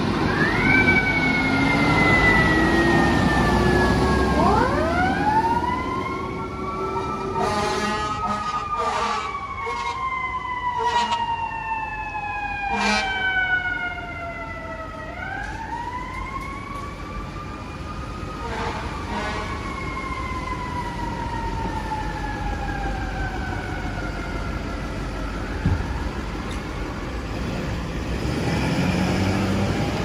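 FDNY fire apparatus and a battalion chief's vehicle leaving the firehouse with electronic wail sirens, several overlapping, each rising and then falling slowly. A series of short air-horn blasts sounds in the middle.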